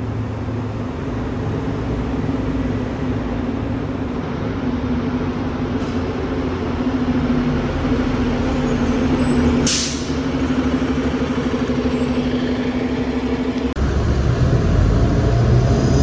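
Transit bus interior: the Cummins ISL straight-six diesel of a 2007 New Flyer D35LFR runs steadily with a constant whine. About ten seconds in there is a short hiss of released air, like an air brake. Near the end the whine stops and a deeper, louder engine rumble takes over.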